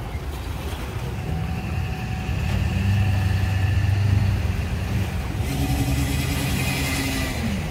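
An engine running at low revs, its note strengthening about a second and a half in, rising in pitch later and dropping away just before the end, over a hiss of wind and water.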